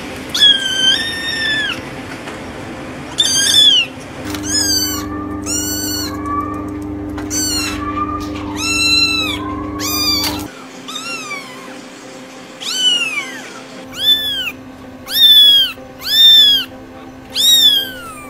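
Kittens meowing over and over in high, thin calls, several different kittens one after another. The last few meows are the loudest, each sliding down in pitch.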